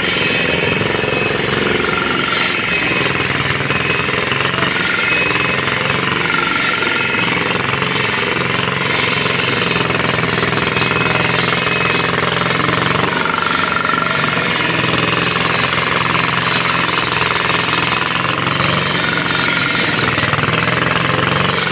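Pavement breaker hammering continuously on runway pavement, a rapid steady pounding over a running diesel engine.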